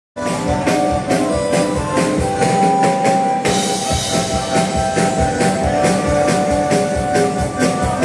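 Bandoneon playing a tune in held chords and melody notes, over a steady drum beat.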